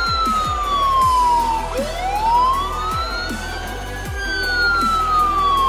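Huina 1562 RC fire truck's sound module playing a wailing siren: the tone falls, rises over about two seconds, then falls again. Under it runs background music with a steady beat.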